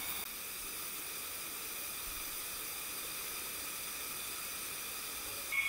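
Steady hiss of a shallow, rocky river running over stones.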